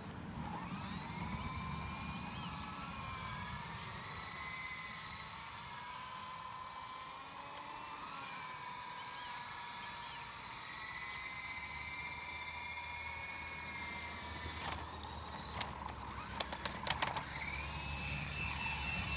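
Toy remote-control coaxial helicopter's electric motor and rotors whining, the pitch rising and falling with the throttle as it hovers just off the ground. A few sharp clicks come about three-quarters of the way through, then the whine climbs to a higher, steadier pitch near the end as it lifts off.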